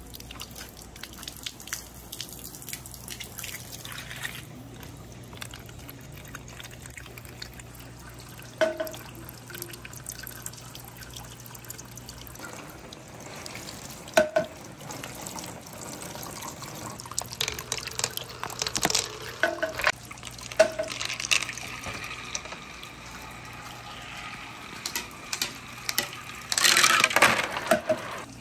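Running and splashing water from a garden hose and a clear plastic pipe feeding a marble-run water slide. Scattered sharp, ringing clacks break through the water, with a dense run of them near the end.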